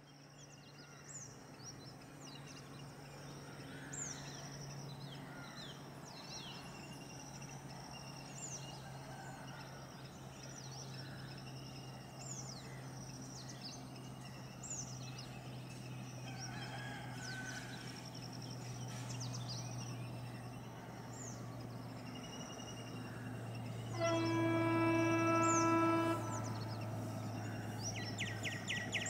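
Birds chirping over a low steady hum, then one long blast, about two seconds, from the horn of an approaching WDG3A ALCo diesel locomotive, the loudest sound, a few seconds before the end.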